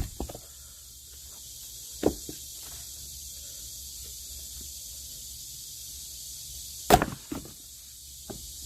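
Wooden logs being split with chopping strikes: a sharp knock about two seconds in and a louder one about seven seconds in, each followed by a few smaller knocks.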